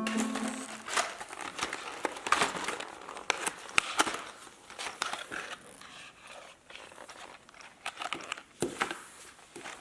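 Plastic toy packaging crinkling and tearing as it is unpacked, with many scattered sharp clicks and knocks.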